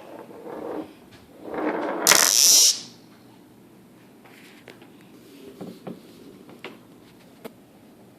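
Pair of egg-shaped 'snake eggs' rattle magnets tossed so they snap together and rattle: a short rattle near the start, then a louder, harsher rattle from about one and a half to nearly three seconds in. A few faint clicks follow as the magnets are handled.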